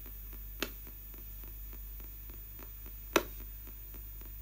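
Spirit box sweeping the AM band in reverse: a steady hum and static cut by a fast run of faint ticks as it steps from station to station. Two short sharp clicks stand out, one under a second in and a louder one about three seconds in.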